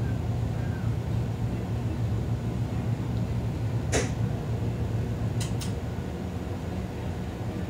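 Steady low room hum, with one sharp click about four seconds in and two quick clicks about a second and a half later.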